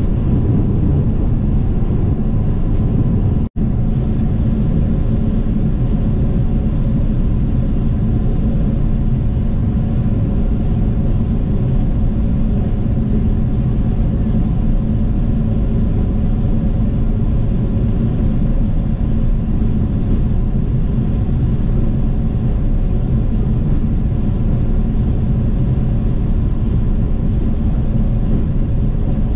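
Steady engine and tyre noise of a vehicle driving along a highway. The sound cuts out for an instant about three and a half seconds in.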